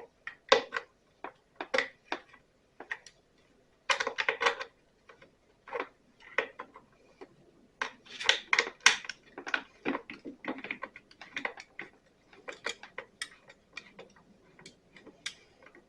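Irregular light clicks and clatter of hand tools working the screws that hold the plastic fuel tank of a Stihl BR 600 backpack blower, with denser bursts of clicking about four seconds in and again around eight to nine seconds.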